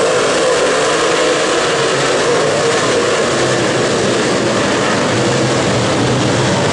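Dirt late model race cars' V8 engines running hard on a dirt oval: a loud, steady roar whose pitch rises and falls a little as the cars go through the turn and onto the straight.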